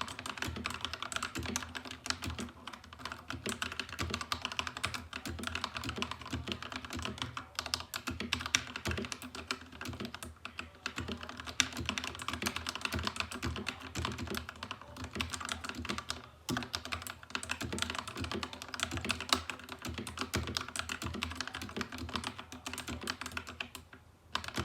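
Fast, continuous typing on a mechanical keyboard with stock, unlubed Akko CS Rose Red linear switches and stock keycaps, many keystrokes a second with brief pauses.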